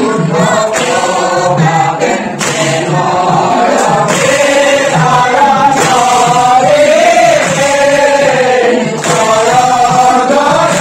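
A group of men singing a devotional chant together, their voices rising and falling in long held lines.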